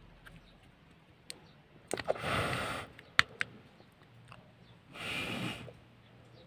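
Small clicks and taps of the Xoss G bike computer's plastic case and red mount insert being handled and pressed into place, the sharpest click just after three seconds. Two short breathy whooshes come about two and five seconds in.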